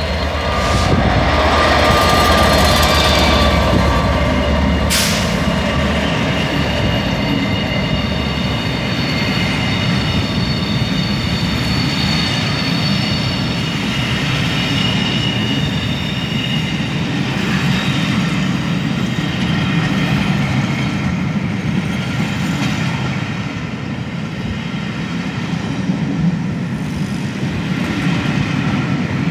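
A Class 67 diesel locomotive passes close, its engine rumbling loudest in the first few seconds, with a sharp clank about five seconds in. Then comes the steady rolling rumble and wheel noise of the Pullman coaches going slowly by, with thin high wheel squeals for several seconds in the middle.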